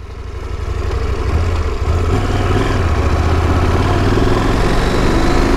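KTM 890 adventure motorcycle's parallel-twin engine pulling away on a gravel road, heard from on board: it gets louder over the first second and a half, then runs steadily at riding speed.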